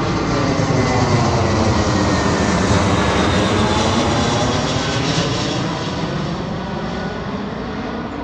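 Jet airplane passing over with a continuous engine roar. It builds slightly near the start, holds loud through the middle, then gradually eases off.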